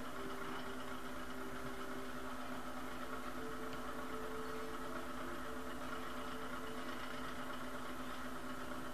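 A steady machine hum with a few held tones, one of them shifting slightly in pitch now and then.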